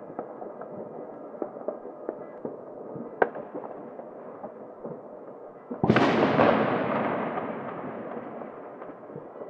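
Street fireworks and firecrackers going off across a city: a steady scatter of distant pops, a sharp crack about three seconds in, then a loud heavy bang about six seconds in whose echo dies away over the next few seconds.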